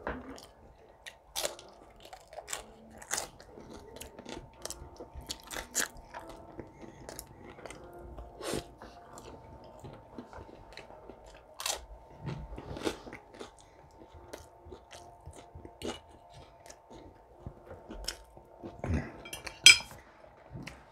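A person chewing and eating, with wet mouth clicks and small crunches at irregular intervals.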